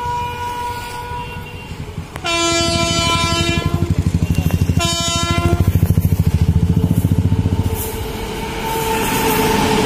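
WAP7 electric locomotive sounding its horn twice as it approaches hauling a passenger train: a longer blast about two seconds in, then a shorter one about five seconds in. Under the horn is a loud, rapidly pulsing rumble of the train running on the rails, which fades after about eight seconds.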